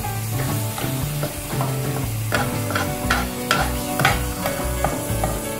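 A metal spoon stirring sago pearls and vermicelli in water in a hot nonstick pan, scraping and tapping against the pan over sizzling, repeated every half second or so from about two seconds in.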